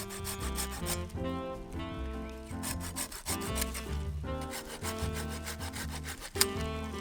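Background music with a steady beat and changing melodic notes over a bass line.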